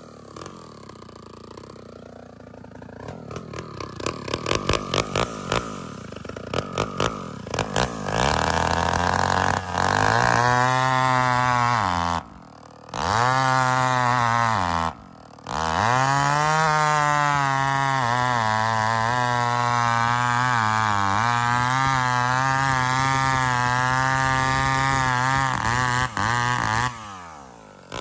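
Rebuilt vintage two-stroke chainsaw running: a few seconds of irregular, sputtering pulses at low speed, then revved up to high speed. It drops back briefly twice and picks up again, then holds at high revs with the pitch sagging and recovering as if cutting under load, and is let off near the end.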